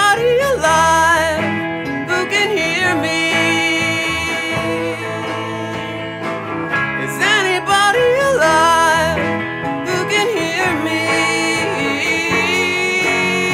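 A country-style song: a man singing over guitars, with long held, wavering sung notes.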